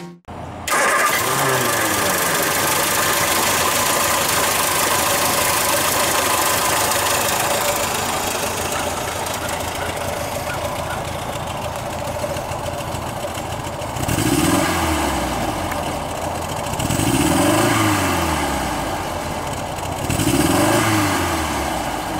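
1979 MG Midget's 1500 cc four-cylinder engine with a Weber carburettor starting up under a second in, then idling steadily. In the second half it is revved three times, each rev rising and falling back.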